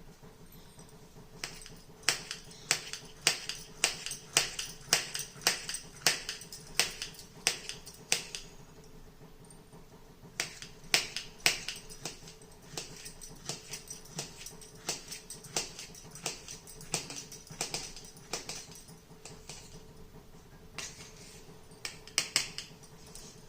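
Knife cutting peeled ripe bananas into pieces, each stroke a sharp tap, about two a second in runs with short pauses between them.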